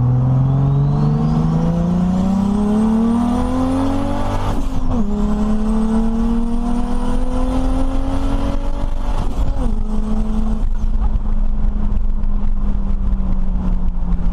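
Turbocharged Toyota 1JZ straight-six in a 1936 Morris 8, heard from inside the cabin, accelerating through the gears. The engine note climbs, drops sharply at an upshift about five seconds in and again near ten seconds, then holds steady as the car cruises. A high whine climbs with the revs, the GT30 turbo spooling.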